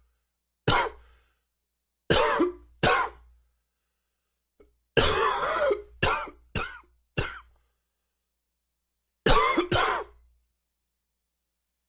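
A man's dry, nagging cough in short fits: a single cough, then a pair about two seconds in, then a longer run of four coughs starting about five seconds in, and a final quick pair near the end.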